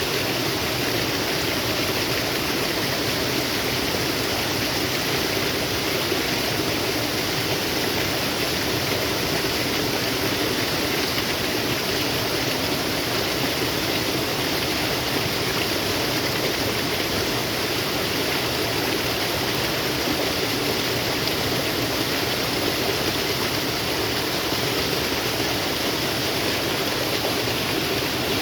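Flowing water in a natural stream, a steady even rushing.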